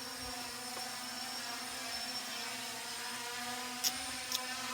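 Small budget quadcopter drone's propellers whirring in a steady hum as it flies, with two brief clicks near the end.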